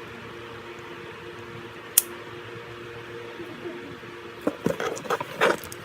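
Slime being squeezed and poked, a quick run of short wet squelches and crackles near the end, with one sharp click about two seconds in. A steady low hum runs underneath.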